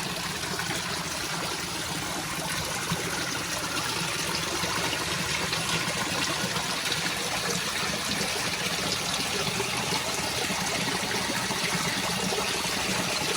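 Steady running water, a constant rushing and trickling sound.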